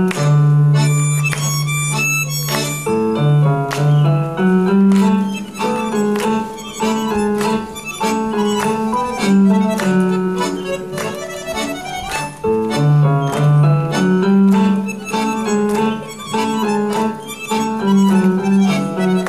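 Accordion orchestra playing a Greek popular (laïko) medley: a pitched melody over long held bass notes, with short chords struck in a steady rhythm.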